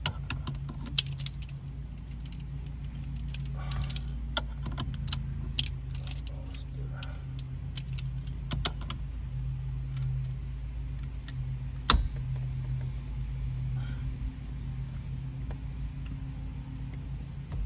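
Small metal hand tools clinking and clicking against metal steering-column parts, in scattered taps with one sharp metallic click about twelve seconds in, over a steady low hum.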